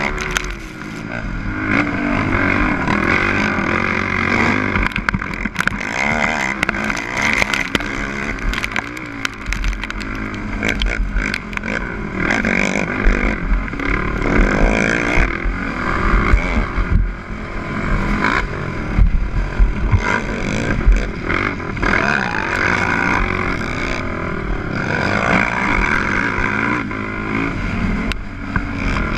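The rider's 450-class race quad's engine running hard, its pitch rising and falling over and over as it revs and shifts. Many sharp clicks and heavy low rumbles from wind buffeting the microphone run through it.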